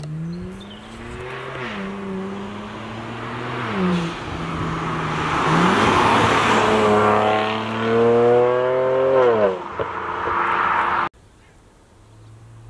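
BMW 335i's twin-turbo N54 straight-six engine accelerating hard, its pitch climbing and then dropping several times as it gets louder. It cuts off abruptly near the end, leaving a quieter steady engine hum.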